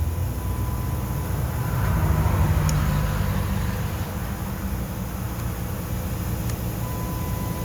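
2005 Chrysler 300's 3.5-litre V6 engine running just after being started, getting louder for a moment about two seconds in and then settling to a steady idle.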